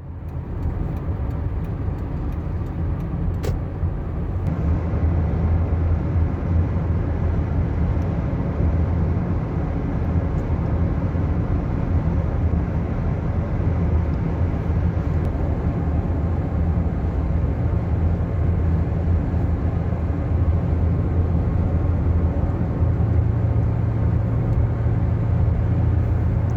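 Steady road rumble heard inside a moving car at highway speed: tyre and engine noise, low and even.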